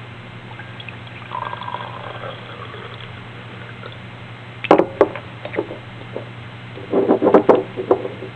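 Lead nitrate solution poured from a glass bottle into a glass beaker, trickling for the first few seconds. A sharp knock of glass set down follows a little before five seconds in, then a run of clicks and knocks around seven seconds in as a bottle's screw cap is handled. A steady low hum runs underneath.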